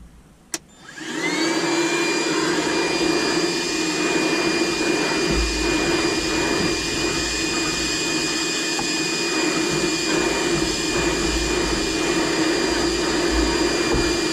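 DeWalt DCV581H cordless wet-dry vacuum, running on a 20-volt battery, switched on with a click. Its motor spins up over about a second to a steady high whine and runs on evenly as it vacuums a rug, with a few low thumps of the nozzle.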